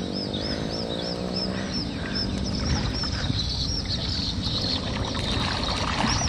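River water sloshing and lapping close to a camera held at the water's surface, with a high chirping call repeated about three times a second behind it. During the first two seconds a low hum rises slightly in pitch and fades.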